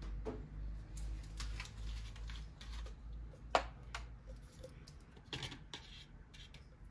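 Light clicks, taps and rustles of art supplies being handled on a desk, with one sharper click about three and a half seconds in.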